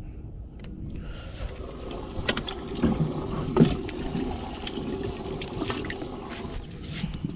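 Water sloshing and splashing in a boat's bait well as a dip net is worked through it for a live golden shiner, with several sharp knocks of the net frame and hatch against the well.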